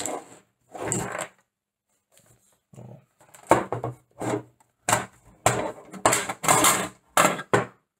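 Handling noise as a small mini-ITX PC case is opened: short rubbing and knocking sounds, one about a second in and then a quick string of them through the second half.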